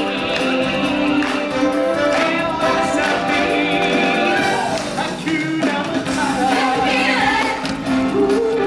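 Stage musical: voices singing held notes over full instrumental backing.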